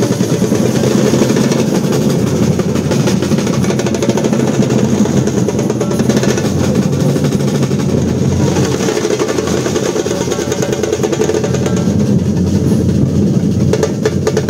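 A Colombian percussion group drumming together: a fast, dense rhythm of many drum strokes that runs on without a break.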